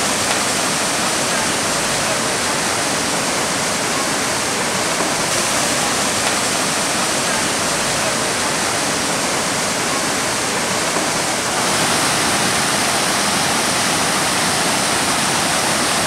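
Waterfall and mountain stream rushing over rocks: a steady wash of white water, its tone shifting slightly about five and twelve seconds in.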